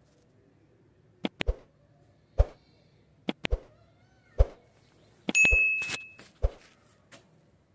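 A series of sharp, irregular knocks and clicks, roughly one every second, with a brief metallic ring after a knock about five seconds in.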